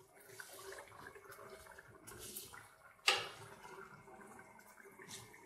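A metal spoon spreading rice through broth in a kazan: soft wet scraping and sloshing, with a sharp clink of the spoon against the pot about three seconds in.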